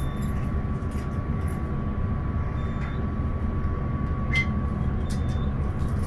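Glass elevator running as it rises: a steady low rumble with a faint steady whine, and a couple of light ticks.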